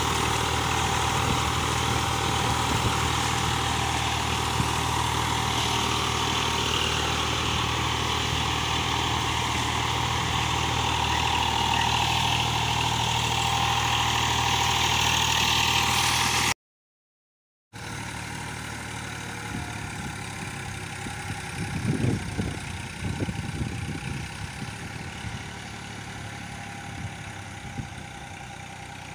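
Eicher tractor's diesel engine running steadily as the tractor works in deep, waterlogged mud where it has got stuck. About two-thirds of the way through it cuts out for a second, then comes back quieter and more distant, with a few louder irregular splashes or knocks soon after.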